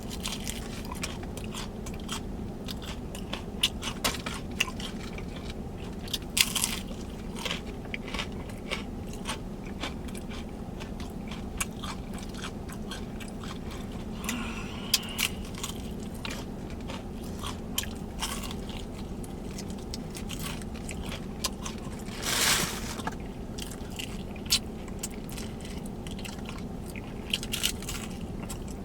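Close-miked biting and chewing of crunchy fried food, with scattered sharp crunches, a louder one about two-thirds of the way in, over a steady low hum.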